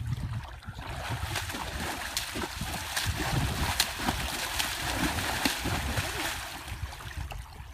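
Horse pawing at shallow muddy water with a foreleg, splashing over and over at a little under a second apart.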